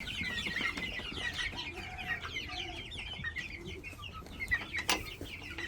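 A flock of chickens clucking and cheeping, many short overlapping calls, busiest in the first few seconds, with a couple of sharp knocks near the end.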